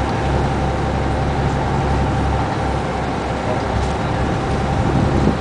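Fishing boat's engine running steadily: a continuous low drone with a thin, steady whine above it.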